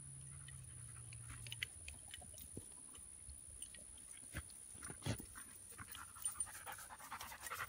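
Faint crunching and rustling through grass, with a dog panting as it comes closer. The crunches come as scattered short clicks that grow busier in the second half.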